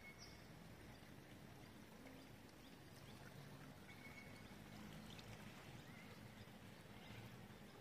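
Near silence: faint outdoor ambience, with two faint short high chirps, one at the start and one about four seconds in.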